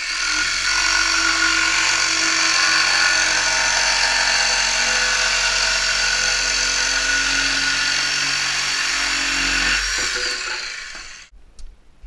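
Jigsaw cutting through half-inch plywood, running steadily for about ten seconds. It is then switched off and winds down to a stop a second or so later.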